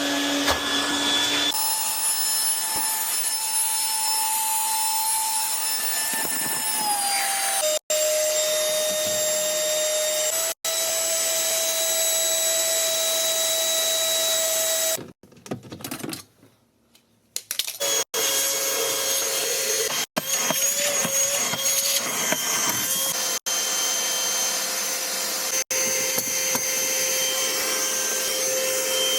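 A small electric motor running with a steady whine, its pitch dropping about seven seconds in. The sound is cut off sharply several times and drops out briefly a little past the middle.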